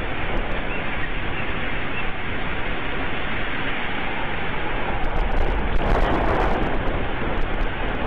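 Steady rushing noise on an outdoor live-camera microphone, swelling briefly about six seconds in, with a few faint clicks.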